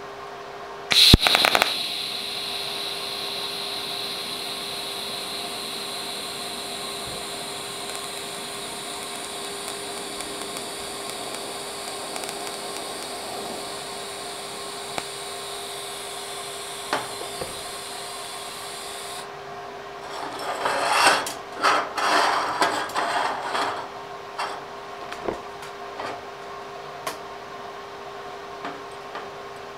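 TIG welding arc struck about a second in with a sharp crackle, then a steady hiss with a high whine while it burns on a thin steel tube, cutting off after about 18 seconds. Several seconds of irregular scraping and knocking follow as the tube is handled on the steel bench.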